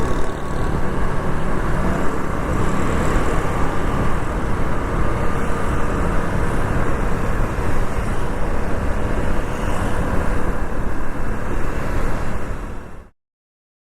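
Motorcycle on the move in traffic: engine and road noise with wind rushing over a clip-on lavalier mic, heaviest in the low end. It cuts off suddenly near the end.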